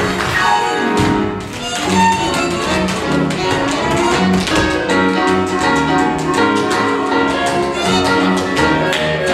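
Orchestral show-tune accompaniment with strings prominent, under the rapid clicking of tap shoes from two dancers on the stage floor.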